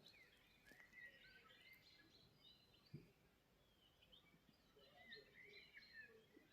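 Common starlings singing faintly: a run of short whistles, chirps and sliding notes. A soft low thump about three seconds in.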